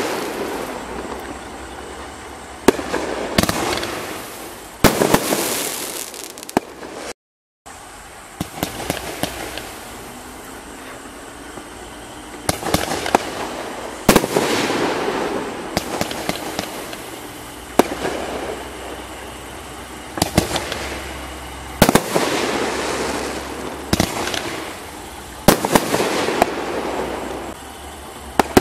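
Illuminati Fireworks Dysfunctional Series 500-gram, 15-shot consumer fireworks cakes firing shot after shot: sharp reports every second or two, each trailing off over a second or so. The sound drops out to silence for an instant about seven seconds in, where one cake ends and the next begins.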